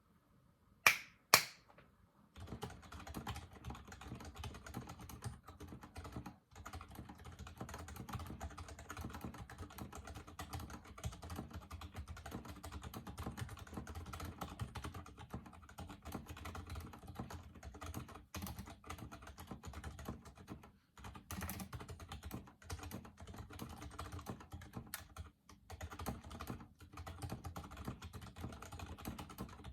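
Typing on a custom mechanical keyboard, a KPrepublic BM68 with Gazzew Boba U4 silent tactile switches, PBT keycaps and foam inside its plastic case: fast, continuous keystrokes with a few brief pauses. Two sharp, louder clicks come about a second in, before the typing starts.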